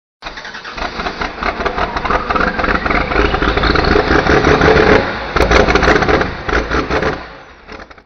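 An engine revving hard, with a whine that rises in pitch over a couple of seconds. It drops off briefly about five seconds in, surges again and fades out near the end.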